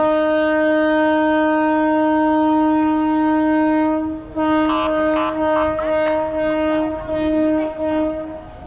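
A boat horn sounds one long steady blast for about four seconds. It then sounds again in a few shorter blasts, and a second, higher horn or whistle toots briefly over it partway through.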